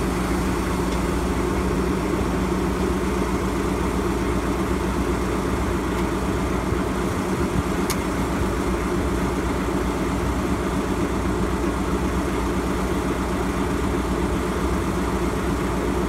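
JR Freight DE10 diesel-hydraulic locomotive idling steadily at close range, with an even, unchanging engine drone. A single faint click about eight seconds in.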